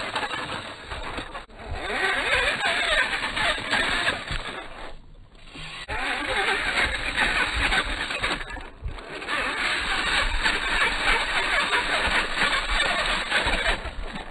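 Slowed-down sound of a radio-controlled rock crawler's electric motor and drivetrain whirring as it climbs over rock, with its tyres scrabbling. The sound drops away for about a second near the middle.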